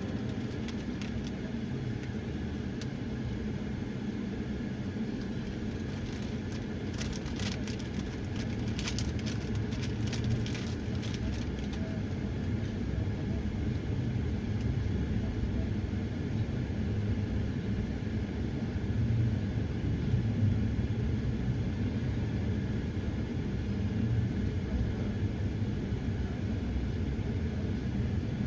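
Road noise and engine rumble of a moving car, heard from inside the cabin, with a run of light knocks and rattles about eight to eleven seconds in.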